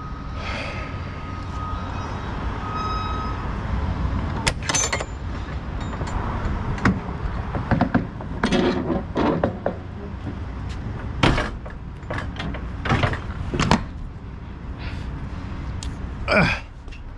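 Metal clanks, knocks and a couple of short creaks falling in pitch, as from a semi-trailer's rear doors being unlatched and swung open, over the steady low rumble of an idling truck engine.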